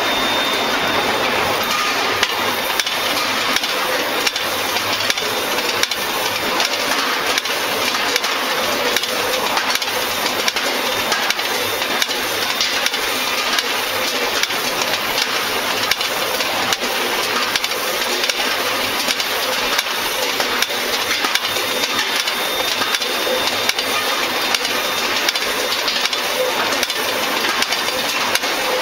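Skew rolling mill for steel grinding balls running while it rolls a red-hot steel bar: a loud, steady hissing machine noise with frequent small clicks and knocks throughout.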